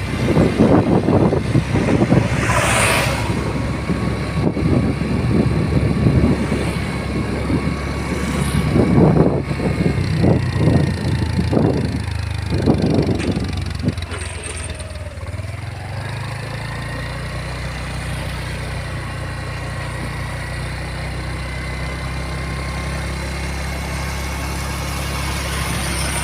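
Motor vehicle running: uneven low noise for about the first fourteen seconds, then a steady low hum.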